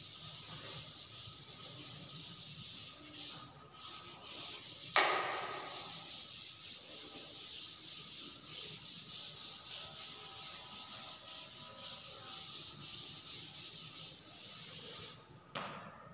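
A chalkboard duster rubbing across a chalkboard in rapid back-and-forth strokes as the board is erased. A sharp knock comes about five seconds in and another near the end.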